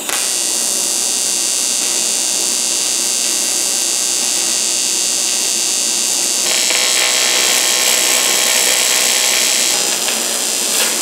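TIG welding arc on aluminium, a steady electric buzz as thin 1 mm aluminium plate is welded onto a thick aluminium cooler core. The tone brightens about six and a half seconds in.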